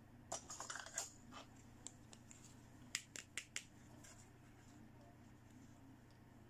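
Faint plastic clicks and taps as a small pink plastic toy kidney dish is picked up off a wooden table and handled with long fingernails. There is a quick cluster of taps in the first second, then four sharp clicks about three seconds in.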